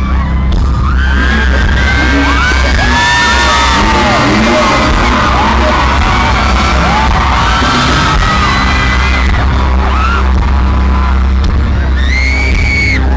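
A concert crowd screaming and cheering over loud music with a heavy, steady bass. Many high-pitched screams overlap, and one scream close by stands out near the end.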